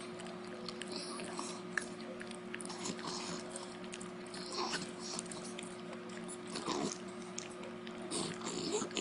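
Beagle chewing a dog treat with repeated wet lip-smacking and clicky chewing sounds.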